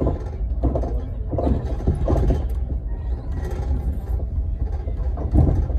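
Passenger train running: a steady low rumble with occasional knocks and faint voices.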